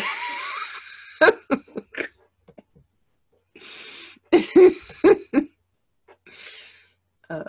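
A woman laughing in two bouts. Each starts with a breathy rush of air and breaks into a quick run of short 'ha' pulses, the second bout about four seconds in.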